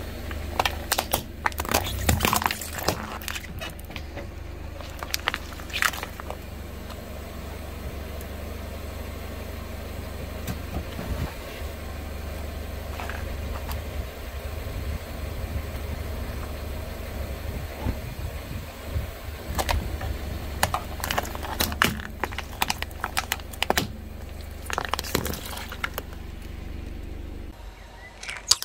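Things crunching and cracking under a car tyre in several bursts, over the steady low hum of the car's engine. The cracking comes in clusters near the start and again through the second half, with a stretch of engine hum alone in between.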